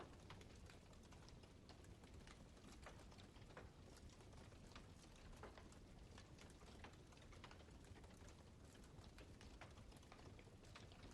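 Wood campfire crackling: irregular sharp pops and snaps, several a second, over a low steady burning hiss.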